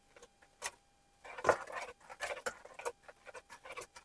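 Crushed raspberries being stirred in a pot: irregular light clicks and scrapes of the stirring utensil against the pot, the loudest about a second and a half in.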